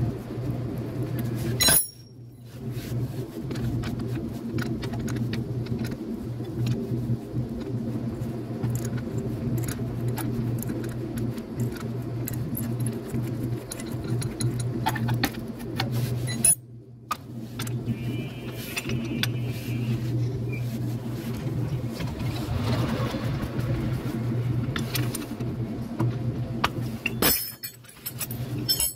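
Metal hand tools clinking against bolts and metal while a pickup's starter motor is unbolted, over a steady low mechanical hum. The sound cuts off abruptly twice, about two seconds in and about halfway through.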